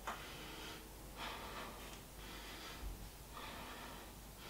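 A woman breathing audibly, with soft, slow breaths in and out, several in a row, while she holds a one-legged yoga balance pose.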